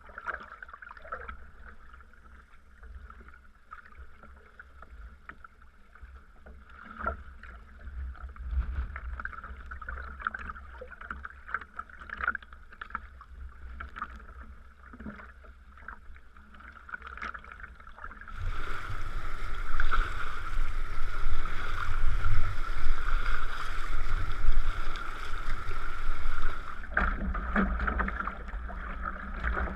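Sea kayak paddling: small splashes and drips from the paddle over a low wind rumble. A louder, even rushing noise comes in sharply just past the middle and stops about eight seconds later.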